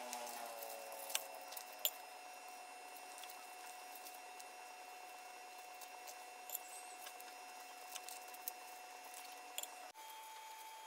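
Scattered faint crackles and ticks of charred, papery shallot and garlic skins being peeled by hand, a few sharper clicks among them, over a steady faint hum.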